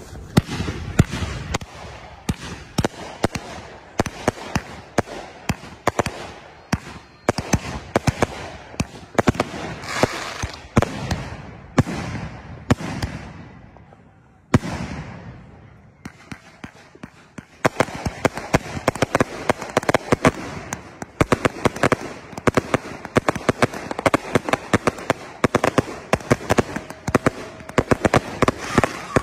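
Consumer aerial fireworks bursting in a grand finale: many loud bangs in quick succession, each trailing an echo. About halfway through there is a lull of a few seconds broken by a single sharp bang, then a dense, rapid-fire barrage of bangs.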